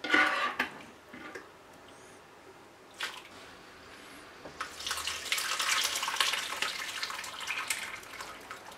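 Thick dark-beer braising sauce with chunks of vegetables and meat poured from a roasting pan into a fine-mesh metal sieve over a bowl, splashing and pattering through the mesh for about three seconds from around halfway in. A brief loud clatter right at the start.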